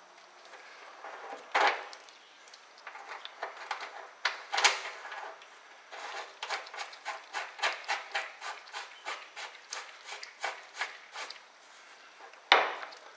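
Hand tools knocking and tapping on the steering linkage of a 1964 Ford Thunderbird as a part is fitted back in place: a few louder metallic knocks, then a run of light, even taps about three a second, and one sharp knock near the end.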